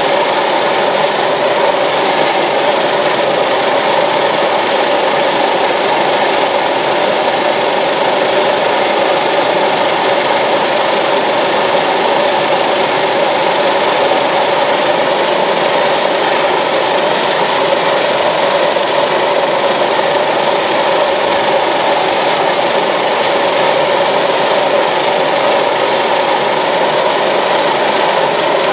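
Turbine Toucan's turboprop engine running steadily, a loud even whine with thin high-pitched tones that hold constant.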